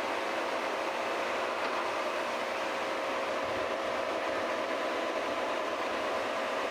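Metal lathe running steadily while thread cutting: an even mechanical drone with a few faint steady tones.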